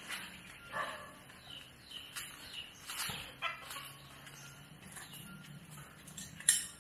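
Scattered short calls of yard animals, fowl-like, with a sharp click about six and a half seconds in.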